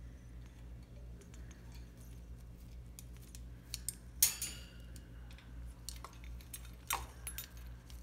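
African grey parrot clambering about its wire cage: scattered light clicks and taps of beak and feet on the bars and fittings, with a sharp ringing metallic clink about four seconds in and another sharp clink near seven seconds.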